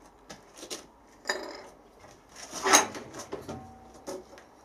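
A handful of metallic clinks and knocks from metal parts and tools being handled on a workshop bench. The loudest is about two-thirds of the way through, and one leaves a short ring.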